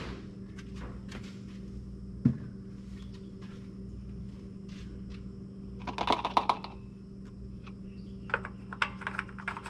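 Small plastic clicks and rattles as the oil funnel and filler cap are handled, with one sharp knock about two seconds in, over a steady low hum.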